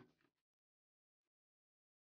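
Near silence, apart from the dying end of a cleaver chop through yam onto a plastic cutting board right at the start and a faint click about a second in.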